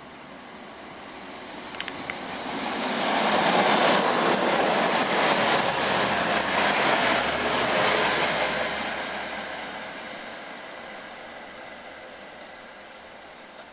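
A Class 185 diesel multiple unit passes through at speed without stopping. A rush of wheel and air noise swells over a couple of seconds, is loudest as the carriages go by, then fades as the train draws away.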